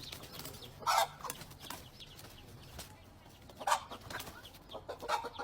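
Fowl clucking, with two loud squawks, one about a second in and one just before four seconds in.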